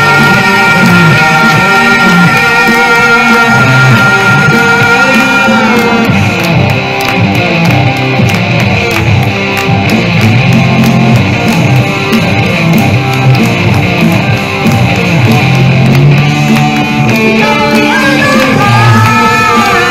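Live rock music from an electric guitar through an amplifier with a singer's voice. A long held note bends upward about six seconds in, and more rising bends come near the end.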